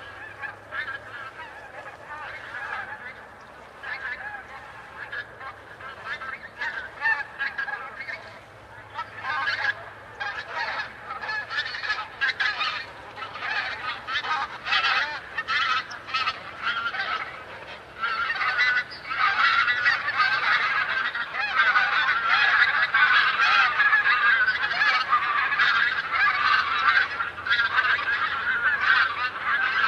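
A very large flock of wild geese honking in flight, many overlapping calls. The calling is scattered at first and swells into a dense, continuous clamour about two-thirds of the way in.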